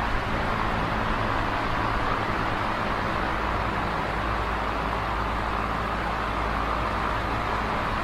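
Electric desk fan running: a steady rush of air with a low, even motor hum underneath.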